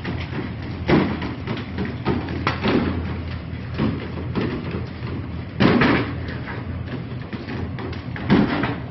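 A few heavy thuds and bangs, the loudest a little past halfway, over a steady low hum.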